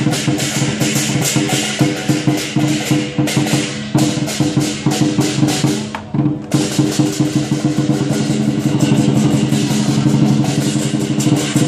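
Lion dance percussion: a drum, crash cymbals and a ringing gong played in a fast, steady beat, with a brief break about six seconds in.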